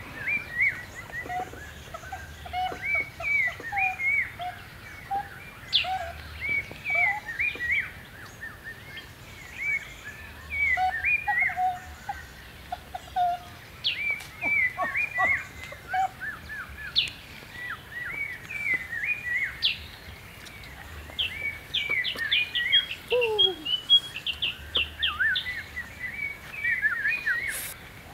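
A chorus of many birds chirping and calling, with dense short high chirps throughout. A few lower, downward-sliding calls come near the end.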